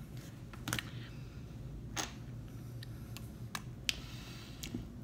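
A few scattered light clicks and ticks, the clearest about two seconds in, over a low steady hum.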